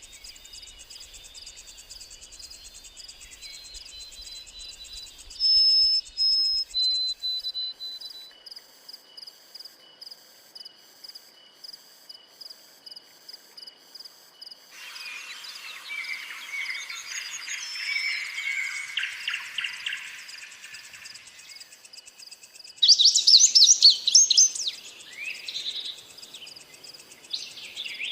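Wild forest birds calling over a steady, high-pitched insect drone. Clear whistled notes come about five seconds in, a dense buzzy chattering chorus swells from about the middle, and a burst of sharp, loud chirps follows near the end.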